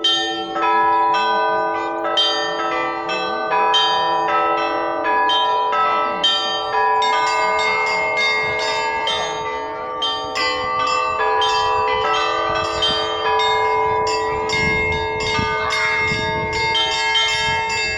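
Russian Orthodox church bells being rung: several bells of different pitches struck in a steady pattern about twice a second, over the lasting hum of the larger bells.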